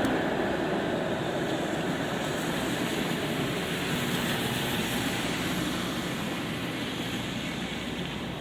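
Light rain falling on a city street, with the rumble of a passing vehicle slowly fading away.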